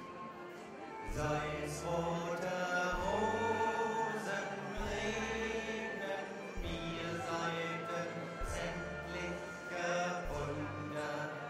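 Music with a steady beat and a moving bass line.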